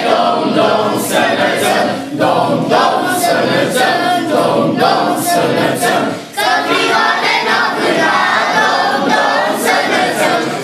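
A group of voices singing a Christmas carol together in chorus, with a short break between lines about six seconds in.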